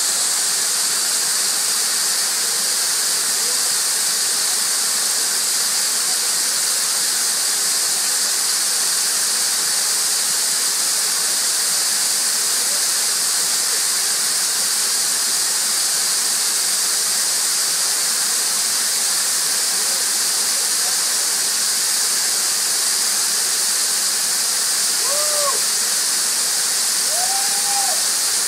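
A waterfall rushing: a steady, loud hiss of falling water. Near the end, two short, faint rising-and-falling calls sound over it.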